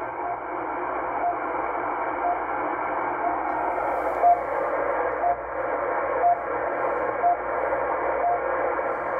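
RWM Moscow time signal on 9996 kHz heard through a shortwave receiver in CW mode on an end-fed wire antenna: a short beep once a second over steady band hiss, with one beep about four seconds in a little louder.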